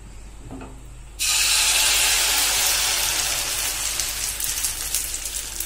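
Wet ground black rice paste poured into hot melted ghee in a steel kadai, starting a loud sizzle about a second in that eases slowly.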